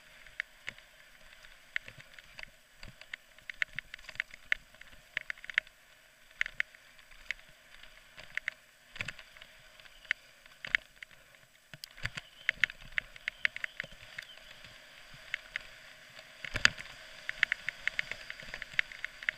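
Downhill mountain bike clattering down a rough dirt trail: a constant stream of irregular sharp clicks and knocks from the bike and its parts jolting over the ground, with a heavier knock near the end.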